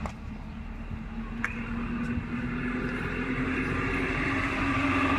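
A steady motor engine hum: a low drone that rises slightly in pitch and grows slowly louder, over a steady hiss.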